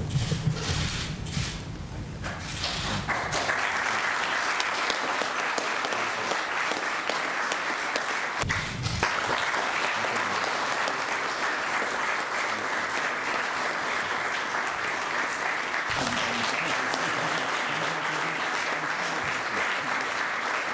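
Audience clapping, a steady patter of applause that starts about three seconds in and keeps going.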